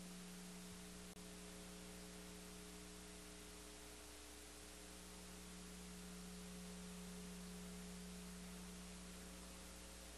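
Near silence: a faint, steady electrical hum under a soft hiss.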